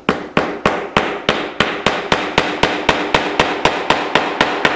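Small hammer tapping a dovetail wedge into the corner joint of a wood picture frame: a fast, even run of light taps, about three or four a second, driving the wedge down flush.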